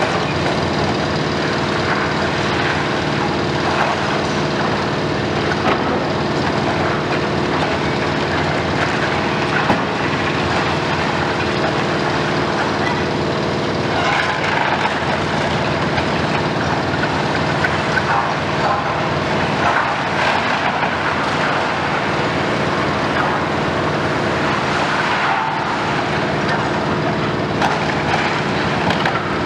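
Diesel engine of a Komatsu PC490 long-front demolition excavator running steadily under load, over continual crunching and cracking of masonry and rubble breaking and falling as the building is torn down.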